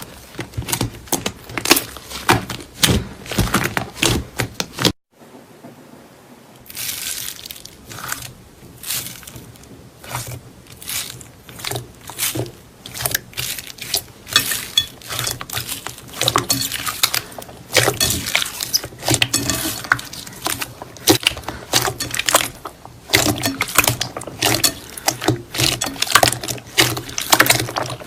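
Slime being squished and pressed by hand: a dense, irregular run of wet clicks and pops, broken by a short gap about five seconds in.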